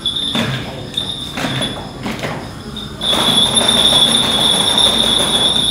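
Small jingle bells fitted inside a lion dance (barongsai) head ringing as the head is moved and shaken, with a few knocks and rustles in the first couple of seconds. About three seconds in the jingling becomes a louder, continuous high ring.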